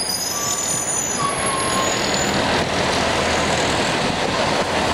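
City street traffic noise dominated by a bus passing close by, a steady loud rush of engine and tyres. A short high squeal sounds about a second in.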